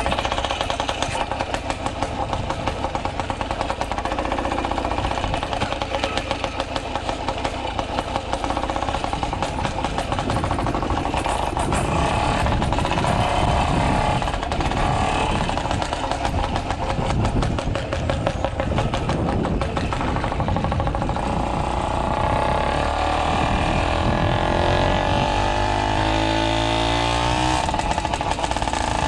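Two-stroke motorized bicycle engine running with a fast, rapid putt while the bike is ridden. Its pitch rises near the end as it speeds up.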